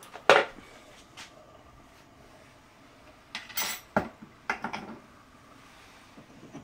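Kitchen utensils clinking and knocking against a dish while spices are added: one sharp knock just after the start, then a brief rustle and a quick run of knocks about halfway through.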